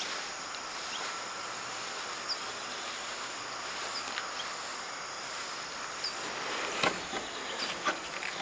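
Steady high background hum of insects, with a few faint short high chirps. A few light knocks near the end.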